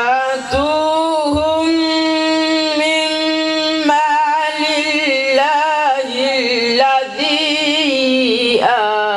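A young man's voice chanting Quranic recitation in the melodic tajweed style, amplified through a microphone. He holds long drawn-out notes, the first for about three seconds, then runs into wavering ornamented turns.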